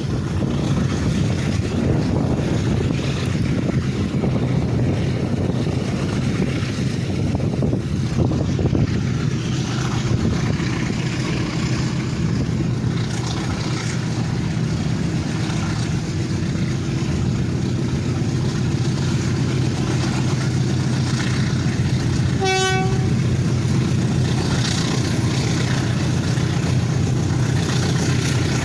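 Pair of GE U13B and U15B diesel-electric locomotives running at low speed with a steady low engine drone, hauling loaded ore wagons. A single short horn toot comes about 22 seconds in.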